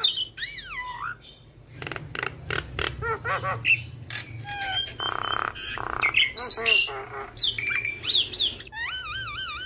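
Javan myna (jalak kebo) singing a long, varied song full of mimicked phrases. It mixes whistled glides, sharp clicks, quick warbling trills and harsh raspy notes, and ends on a wavy trilled whistle.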